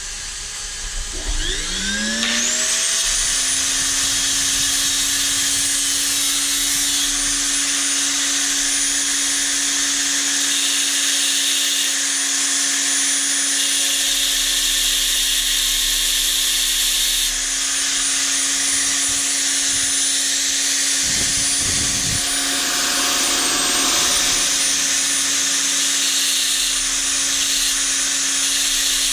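A small electric power-tool motor winds up over about two seconds, then runs at a steady high speed with a constant whine, while a steel plunger is cut and shaped against it, adding a hissing scrape that comes and goes in strength.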